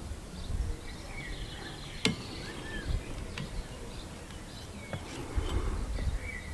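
Quiet outdoor background with a few sharp clicks of plastic being handled: a wiper blade's plastic mounting bracket knocking against the metal wiper arm. The clearest click comes about two seconds in, with smaller ones near three and a half and five seconds.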